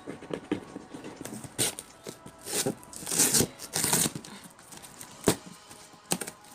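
Black tape being peeled and ripped off a cardboard box in several short tearing pulls, with cardboard rustling and a sharp click about five seconds in.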